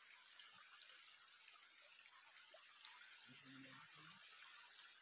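Faint, steady trickle of a shallow rocky stream, with a brief low murmur of a man's voice about three and a half seconds in.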